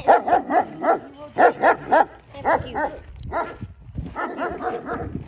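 German shepherd barking repeatedly in quick runs of three or four barks with short pauses between.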